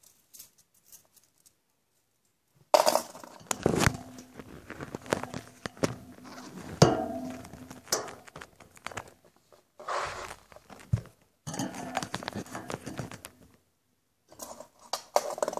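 Handling noise from a phone being moved close to its microphone: rubbing, knocks and light clinks in several irregular bursts, starting about two and a half seconds in.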